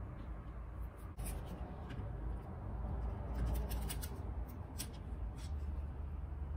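Small sharp clicks and scrapes of a screwdriver tip prying at the carbon brush holder of a Dongcheng angle grinder as the carbon brush and its spring are worked loose. There are a few ticks about a second in and a run of them in the second half, over a low steady rumble.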